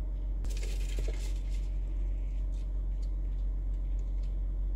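Toyota Sienna minivan idling, heard from inside the cabin as a steady low rumble, with a few faint clicks.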